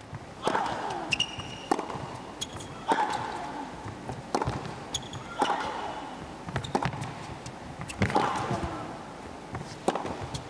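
Tennis rally on a hard court: tennis balls struck by rackets and bouncing in quick succession, several sharp hits each second or two. About every two and a half seconds a player grunts as she hits.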